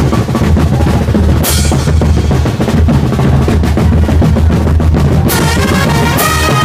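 Brass street band's drum section playing a busy beat on bass drum and snare, with cymbal crashes about a second and a half in and again near the end. Horns come in with held notes near the end.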